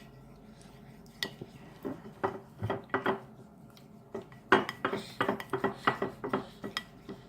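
A spoon clinking and tapping irregularly against a cup while stirring glue and food coloring together, with a flurry of quicker taps in the second half.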